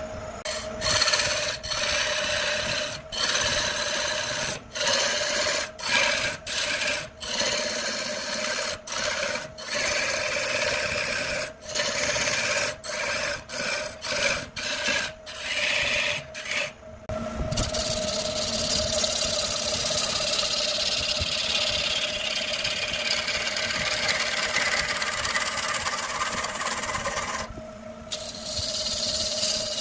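Gouge cutting into a spinning wood blank on a motor-driven lathe: a rasping, hissing cut over the steady hum of the lathe motor. For the first half the sound breaks off briefly again and again; after that the cut runs on continuously, with a short dip near the end.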